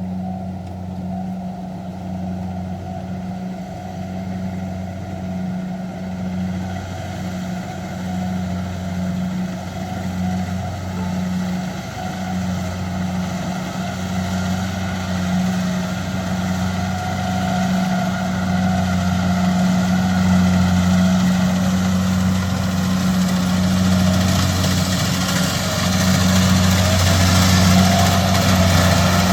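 An engine running steadily with a low, even hum, growing gradually louder through the second half.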